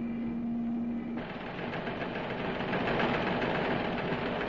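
Engine running with a rapid knocking rattle. A steady hum drops out suddenly about a second in, and the engine noise becomes louder and rougher.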